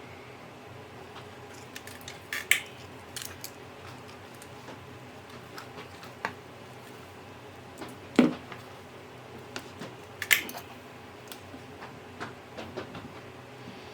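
Small hand tools clicking and tapping on a workbench during circuit-board repair, with three sharper knocks, the loudest about eight seconds in, over a steady low hum.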